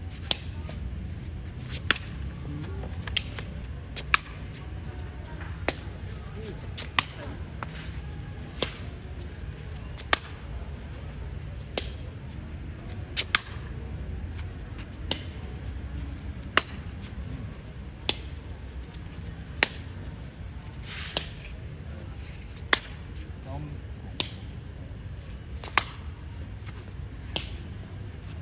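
Sharp slaps of a Khmer shuttlecock being kicked back and forth, about one kick every second and a half, now and then two in quick succession. A steady low rumble runs underneath.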